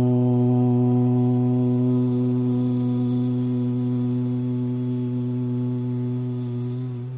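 A single long, steady, low held tone with many even overtones, fading slightly and cutting off about seven seconds in.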